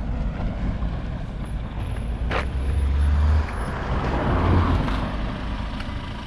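Road traffic going past, a steady rumble that swells about four seconds in as a vehicle passes close by, with a single sharp click a little over two seconds in.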